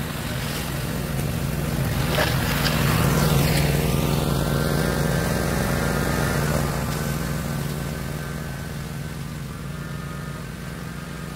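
An engine running steadily, growing louder to a peak about three seconds in and then slowly fading, before the sound cuts off suddenly at the end.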